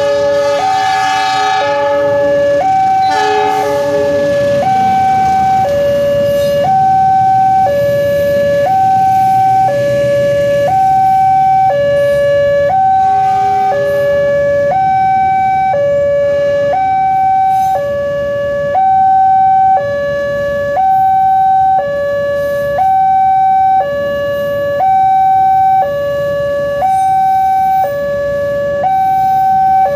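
Railway level-crossing alarm giving its two-tone electronic warning, switching between a lower and a higher tone about every second. A train horn sounds twice near the start, and the low rumble of the passing train follows.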